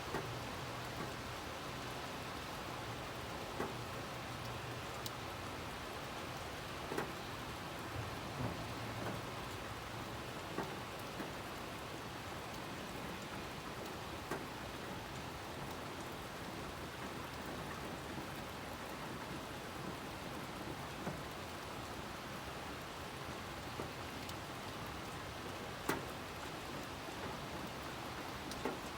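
Steady rain falling, with scattered individual drips ticking on a nearby surface and one sharper drip near the end. A low hum is under the rain for the first third and then fades.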